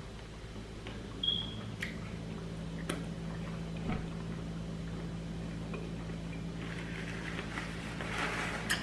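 Eating sounds at close range: a few sharp clicks of a utensil and bouts of chewing, busier near the end, over a steady low hum.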